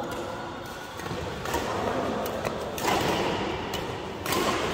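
Badminton rally: a few sharp racket strikes on a shuttlecock, roughly a second apart, with a louder rush of noise about three seconds in.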